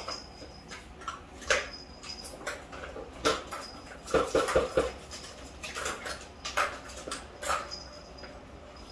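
Plastic ball-track tower toy knocking and rattling as a kitten bats the balls around its tracks: scattered clicks, with a quick run of about five knocks around the middle.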